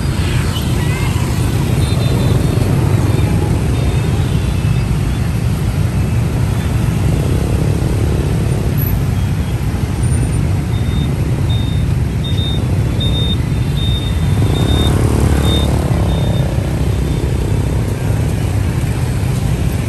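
Dense rush-hour motorbike and car traffic at a city intersection: a steady low engine rumble. A run of short high beeps comes about halfway through, and a louder vehicle passes about three-quarters of the way in.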